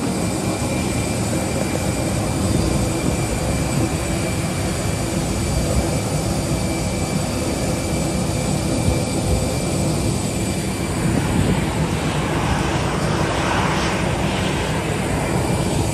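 Jet airliner noise: a steady drone with constant high whining tones, swelling and growing hissier for a few seconds in the second half.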